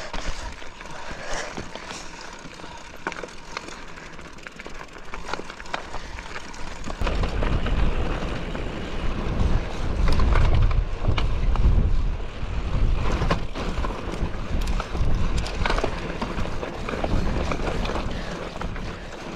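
Mountain bike riding over a rocky dirt trail: tyre noise with frequent clicks and rattles from the bike. About seven seconds in it gets louder, with a heavy low rumble added.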